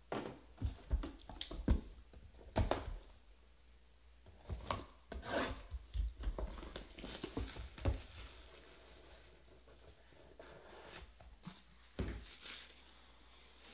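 Plastic shrink-wrap being torn and peeled off a trading-card box, crinkling and rustling in short bursts, with the box handled and a single knock about 12 seconds in as the box is opened.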